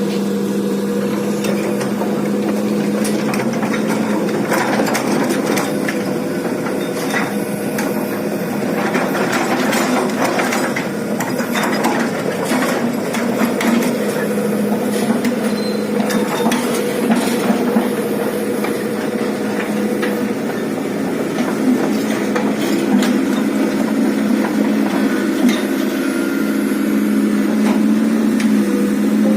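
Excavator's diesel engine running steadily while the machine loads onto an open truck, with many sharp knocks and clanks, thickest through the middle.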